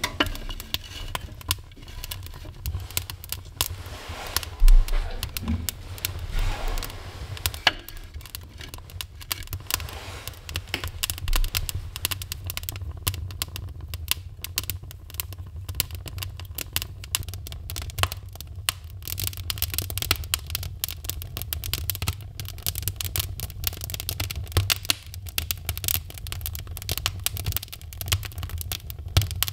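Split kindling sticks burning in a wood stove, crackling and popping over a low rumble, the pops coming thicker and faster as the fire catches. A single louder knock of wood about five seconds in.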